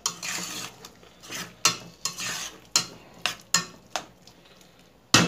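A spoon stirring shrimp in sauce in a stainless steel pot, scraping through the mixture and knocking sharply against the pot several times.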